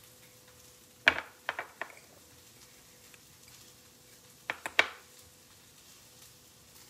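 Metal fork clinking against a small glass bowl while stirring a dry crumb mixture. A group of clinks comes about a second in, the first the loudest, and a quicker group of three follows past the halfway mark.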